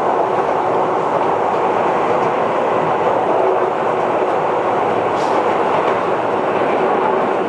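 Keihan Keishin Line train running between stations, heard from inside the car: a steady, even rumble of wheels on rail and running gear.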